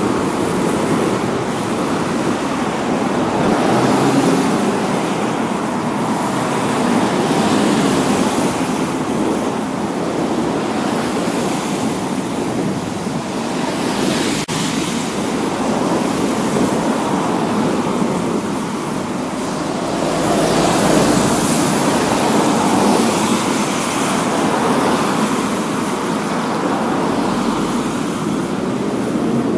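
Street traffic: cars passing on wet asphalt, their tyre hiss swelling and fading as each goes by, loudest about twenty seconds in.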